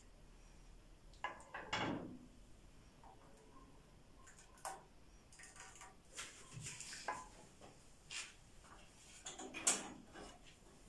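A ladle knocking and scraping against a pot and small serving bowls as thick milk pudding is spooned out, heard as a scatter of light clinks and knocks, the loudest near the end.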